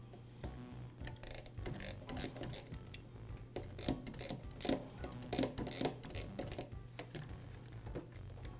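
Small hand tools clicking and ticking irregularly as they loosen the screws that hold a chainsaw's carburetor adapter: a Torx driver and a small socket ratchet working on metal screws.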